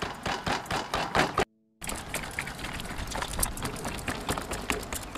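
Rapid, irregular clicking and tapping of forks stabbing the skin of boiled pig legs, pricking holes so the skin puffs and turns crisp when deep-fried. The sound drops out briefly about one and a half seconds in.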